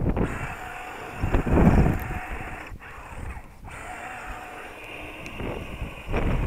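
Wind buffeting the microphone in gusts, loudest about one and a half seconds in and again near the end, over the faint whine of an electric RC scale crawler driving up loose sand.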